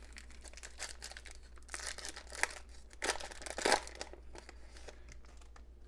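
Foil wrapper of a 2007 Topps football card pack crinkling and tearing as it is pulled open by hand, with two louder crackly spells around two and three seconds in before it quiets down.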